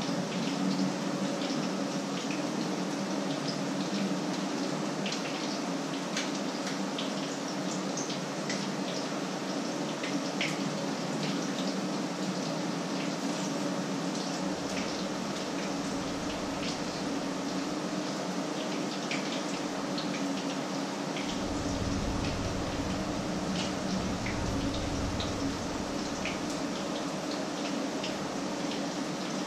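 Fritters frying in hot oil in a frying pan: a steady sizzle with many small scattered pops and crackles, over a steady low hum.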